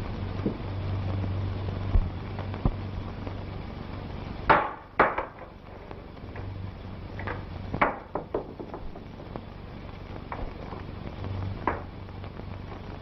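Scattered knocks and clunks, the loudest a pair about four and a half and five seconds in and another near eight seconds, over the steady hum and hiss of an old film soundtrack.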